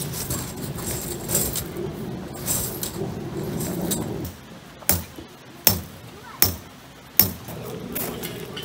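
A tent being pitched: the tent fabric is handled and rustles for a few seconds, then come four sharp knocks about three-quarters of a second apart.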